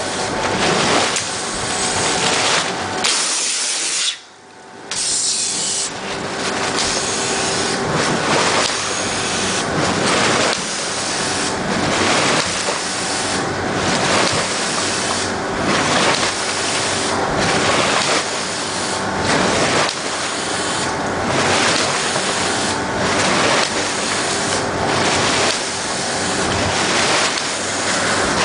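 Pulses of compressed air from a Pulsair probe bursting up through fermenting red grape must and its cap, churning and splashing, with a surge about every two seconds. There is a short break about four seconds in.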